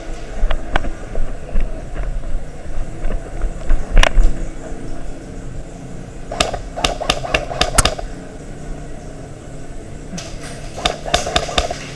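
Airsoft guns firing in short volleys of sharp cracks: a single crack about four seconds in, a quick run of about six a couple of seconds later, and another flurry near the end.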